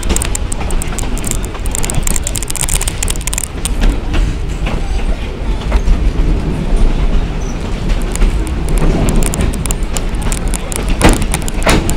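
Narrow-gauge passenger train running, heard from an open car window: a steady rumble of wheels on the track, with repeated clicks from the rails.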